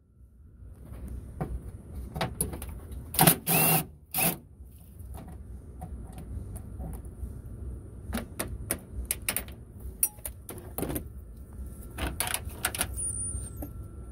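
Clicks, knocks and rattles of hand tools and plastic parts being worked in a pickup's engine bay, with a louder burst of clattering about three to four seconds in.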